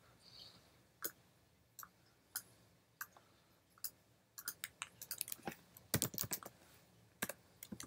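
Computer keyboard and clicks: single clicks spaced about half a second to a second apart, then from about four and a half seconds in a quick run of key presses.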